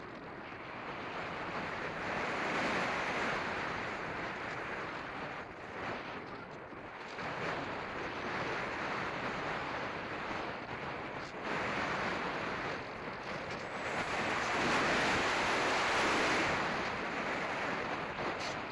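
Wind rushing over the microphone of a camera carried by an RC glider in flight, swelling and easing several times and loudest a little before the end.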